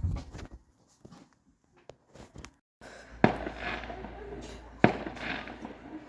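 Fireworks going off: two sharp bangs about a second and a half apart, each followed by a crackling fizz, over a low steady rumble.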